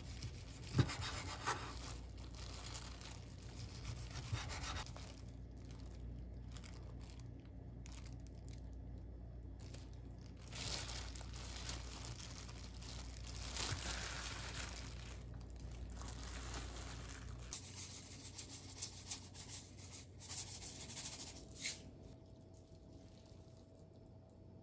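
Chef's knife sawing through a seaweed-wrapped gimbap roll on a wooden cutting board: repeated rasping strokes, with a sharp knock of the blade on the board about a second in. Later come small light taps and rustles as cooked buckwheat noodles are handled in a bowl.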